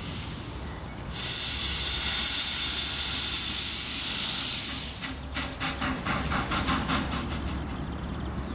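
Miniature 10¼ inch gauge steam locomotive, modelled on a Hunslet quarry engine, letting off a loud hiss of steam for about four seconds, then giving a quick run of exhaust beats for about two seconds.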